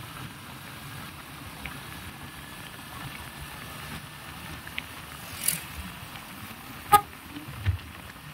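Steady road-traffic noise with a faint, drawn-out tone, likely a distant horn; a few sharp clicks, the loudest about seven seconds in, then a dull thump.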